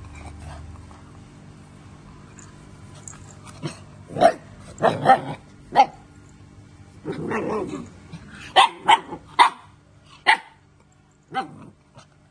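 A puppy barking: short, sharp barks that start about four seconds in and come in quick runs, with a longer, lower growl in the middle.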